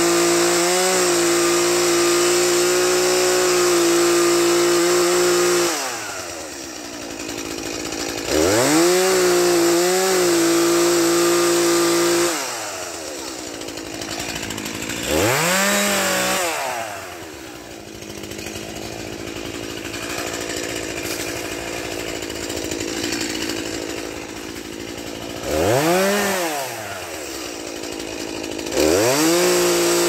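Stihl two-stroke chainsaw running at full throttle while cutting a shallow guide mark along a log, dropping to idle about six seconds in, then revved up again several times, with short blips between idling spells and full revs again near the end.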